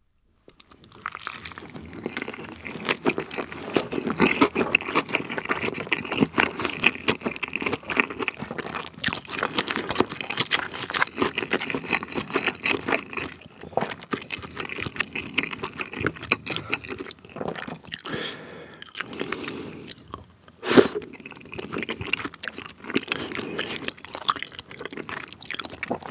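Close-miked chewing of spicy tteokbokki, chewy rice cakes and fish cake in thick sauce, with dense wet, sticky mouth sounds starting about a second in. One louder sound stands out about three-quarters of the way through.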